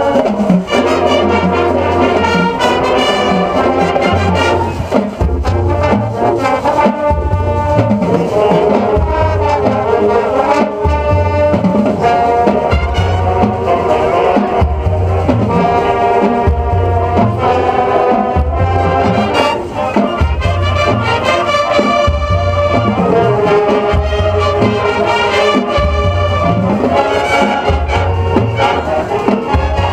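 High school marching band playing a brass-led piece, with low bass notes pulsing in a steady rhythm underneath.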